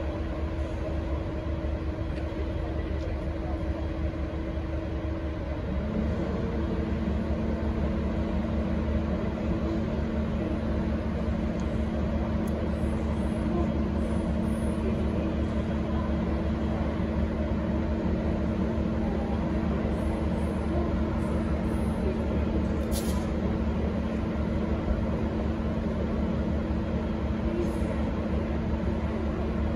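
V/Line N class diesel-electric locomotive's engine running steadily with a deep hum. About six seconds in a second steady hum joins and the sound gets a little louder.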